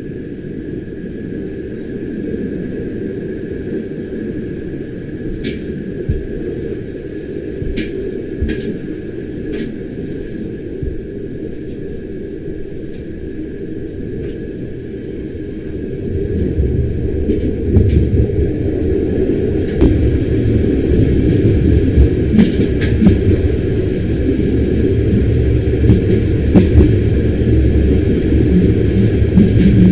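Bernina Express train running along the line, a steady low rumble with scattered sharp clicks and a faint steady whine. It grows louder and heavier about sixteen seconds in.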